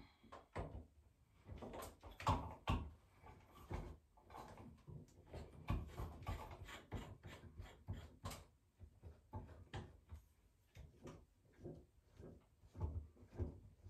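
Light, irregular clicks and knocks of metal shower fittings being handled and fitted by hand at the top of a shower slide bar on a tiled wall.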